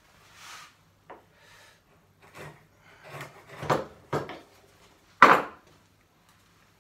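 Hand chisel paring wood, cleaning a last bit of waste in a bridle-joint slot: a series of short scraping cuts, the loudest about five seconds in.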